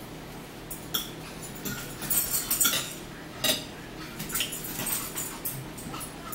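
Eating at a table: forks and knives scraping and clicking on plates, with chewing and mouth sounds. The clicks and short squeaky sounds come in a busy cluster, loudest about two to three seconds in.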